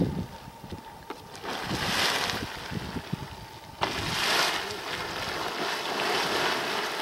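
Firehole Spring's hot-spring pool surging and splashing as large gas bubbles burst at its surface: one surge about a second and a half in, then a louder one that starts suddenly at about four seconds and churns on for a couple of seconds. A few sharp clicks at the very start.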